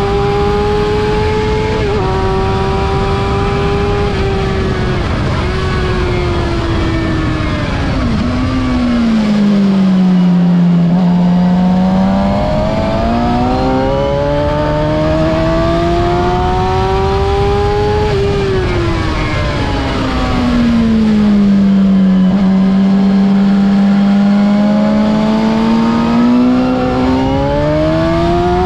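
2006 Suzuki GSX-R750's inline-four engine on a track lap, heard from on board with wind rushing past. It holds high revs, drops in pitch twice as the bike slows for corners, and climbs again each time on the throttle out of them.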